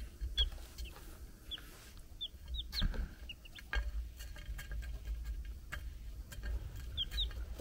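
Young chicks peeping: short, high single cheeps scattered through, two close together near the end. Light ticking taps come between them, as a chick pecks at apple slices on a plate.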